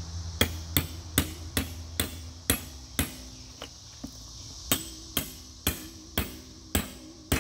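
Hand hammer striking a steel chisel again and again to chip the concrete fire-fill out of a steel safe's wall. Each blow rings sharply, about two a second, with a short pause midway.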